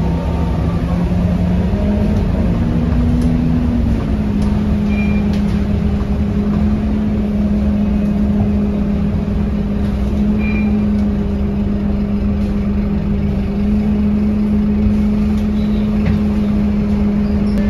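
Scania K230UB bus's 9-litre five-cylinder diesel engine and drivetrain running steadily under way, with a whine that rises briefly a few seconds in and then holds level over a low rumble.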